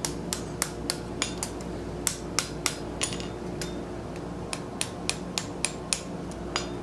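Light hand-hammer blows, a small cross-peen hammer striking hot steel on an anvil, about three a second, with a pause a little past halfway before they resume. The blows are peening and squaring up a freshly forge-welded tee joint. A steady low hum runs underneath.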